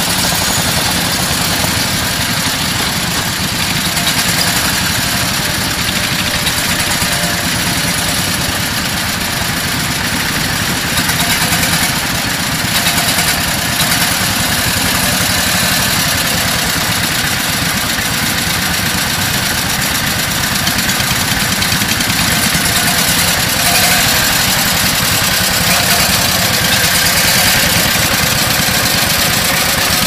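Engine of a British Anzani Iron Horse two-wheeled walking tractor running steadily under load as it pulls a plough through the soil.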